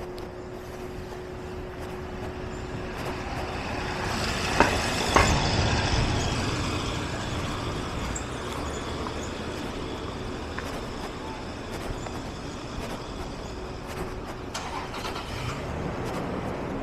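A car passing along a narrow residential street, its tyre and engine noise swelling to a peak about five seconds in and then fading slowly, with two sharp clicks at the peak. A faint steady hum runs underneath.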